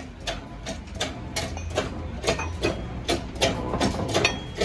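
Repeated sharp metal taps, about three a second and slightly uneven, over a steady low hum, as from work on truck gearbox parts.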